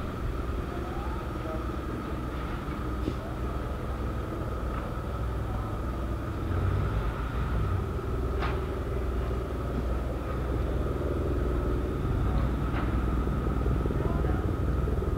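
Steady low outdoor rumble, like engine noise, with a thin steady whine above it and a few faint clicks.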